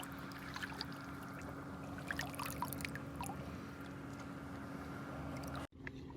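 Distant boat outboard motor running with a steady drone, straining as the boat bottoms out in shallow water, under small splashes and trickling water close by. The audio cuts out for an instant near the end.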